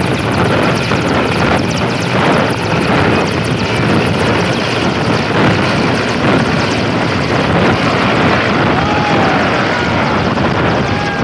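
Mil Mi-17 helicopter's twin turbine engines and main rotor running at take-off power, a loud steady rush as it lifts off and climbs away.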